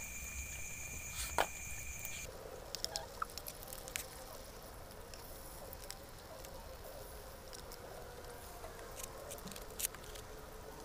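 A steady high insect trill that cuts off about two seconds in. After it come scattered light clicks of a spoon on metal and plastic dishes over a faint, low warbling call.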